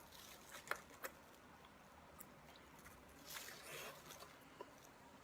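Faint close-up eating sounds: a person biting and chewing sliced boiled pork, with a few sharp mouth clicks about a second in and a short wet smacking noise around the middle.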